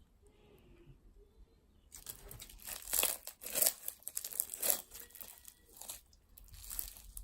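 Slime being squished and stretched by hand, a dense run of crackles and pops that starts about two seconds in and grows loudest in the middle.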